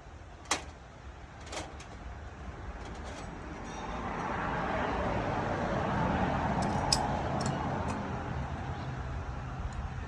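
A vehicle passing by, its noise swelling and then fading over several seconds. There are a few sharp clicks or knocks, two near the start and one in the middle.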